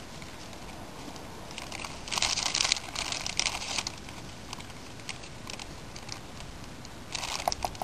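Plastic bait bags crinkling and rustling as dry powdered fishing bait is scooped out of them with a small cup, in a few short bursts with light clicks.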